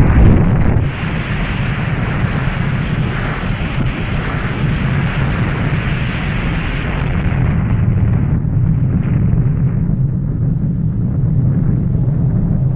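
Nuclear explosion sound effect: a loud blast at the start, then a long, steady deep rumble with a hiss above it that fades out about eight seconds in.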